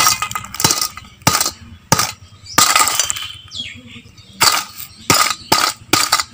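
A stone nora (grinding pestle) pounding ice cubes in a stainless steel bowl to crush them, a run of sharp, irregular strikes of stone on ice and steel. There is a brief pause around the middle before the strikes resume.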